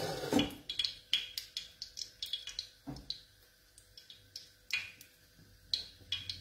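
A wooden spoon stirring a small saucepan of artichoke cream as it cooks: scattered light clicks and ticks, a few a second, with one soft thump about three seconds in.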